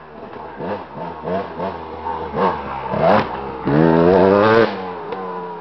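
Dirt bike engine revving up and down again and again as the bike comes closer. It is held high and at its loudest for about a second as the bike passes close, then cuts back and fades.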